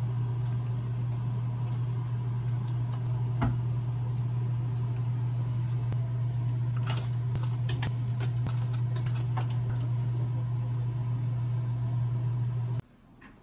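A steady low mechanical hum, like a kitchen fan or motor, runs until it cuts off suddenly near the end. Over it come light clicks, among them a cluster of quick snips from kitchen scissors cutting a green chili pepper onto a plastic tray, about 7 to 9 seconds in.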